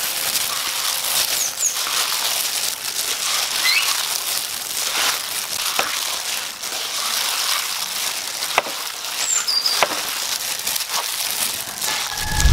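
Plastic-gloved hand tossing and squeezing bean sprouts, cucumber and grated coconut in a bowl: a steady crinkle of the glove and rustle of the crisp vegetables, with a few sharp clicks.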